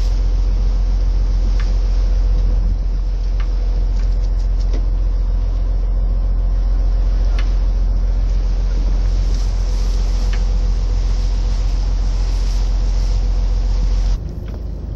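A motor running with a steady low rumble and a constant hum, dropping suddenly in level near the end.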